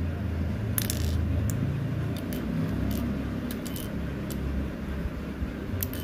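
Hard plastic clicks and taps of 4x4 Rubik's cube pieces being handled and fitted into place by hand, about eight sharp clicks spread unevenly, over a steady low hum.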